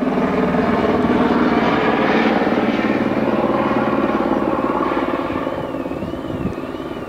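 Firefighting helicopter flying with a water bucket slung beneath it, its rotor chopping steadily. Loud at first, it grows fainter over the last few seconds as it moves off toward the valley floor.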